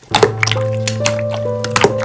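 Background music begins just after the start, with a held bass note under a simple stepping melody. Short sticky clicks and squishes of slime being handled run through it.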